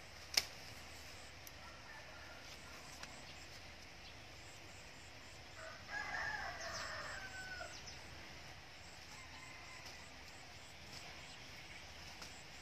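A single sharp snip of scissors cutting a lime-tree stem just under half a second in. About six seconds in, a rooster crows once for about two seconds.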